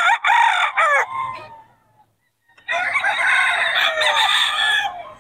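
Gamecocks crowing: a loud crow about a second long at the start, then, after a short pause, a longer crow of about two and a half seconds.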